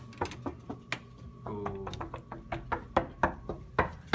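Speedcubes being handled and set down on a hard surface: a quick, irregular run of sharp hard clacks, several a second.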